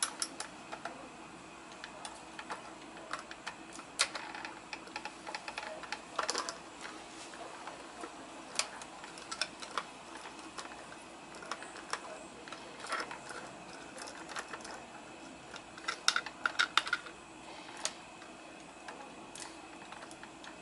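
Scattered plastic clicks and rattles from a 1/34-scale diecast front-loader garbage truck model worked by hand, as its lift arms and forks are moved and a miniature dumpster is handled against them. There is a quick run of clicks about 16 seconds in.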